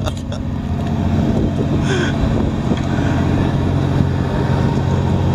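Fishing boat's engine running steadily, a low drone with a constant hum.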